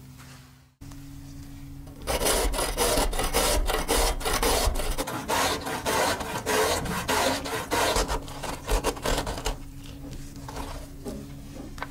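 A zucchini being grated on a stainless steel box grater: strokes in quick succession start about two seconds in, then turn softer and sparser after about nine seconds.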